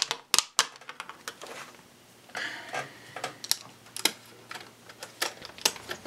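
A handful of sharp plastic-and-metal clicks with some scraping, from a laptop-style RAM module being worked into a tight memory slot in a 2011 21.5-inch iMac.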